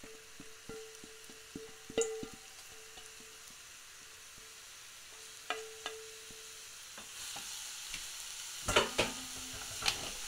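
Chopped onions being scraped out of a stainless steel bowl with a spatula into a hot oiled saucepan, with light taps and scrapes of the spatula on the bowl. The onions start sizzling as they fry on high heat, the sizzle growing louder in the last few seconds, with a clatter of the spatula stirring in the pan near the end.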